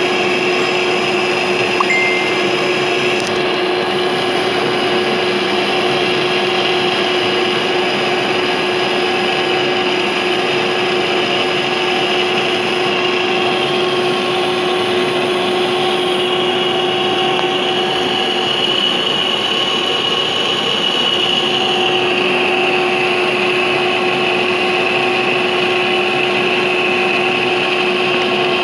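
Large engine lathe running steadily as it turns a heavy steel roller blank under the cutting tool. It makes a constant machine drone with a steady mid-pitched hum and a higher whine that shifts slightly in pitch partway through.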